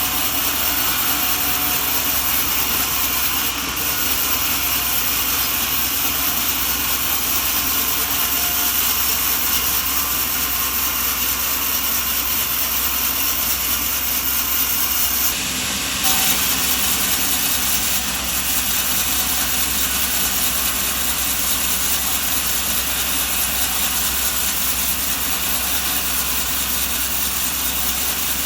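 Steady mechanical drone of running machinery, with a brief shift in the sound about fifteen seconds in.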